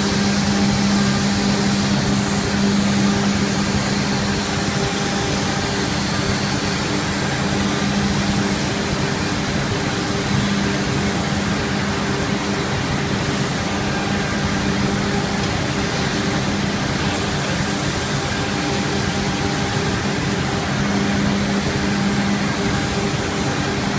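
4-axis CNC router with a swing head running a machining job: the spindle motor hums steadily over a constant hiss of cutting, with the hum swelling and fading every few seconds as the head moves.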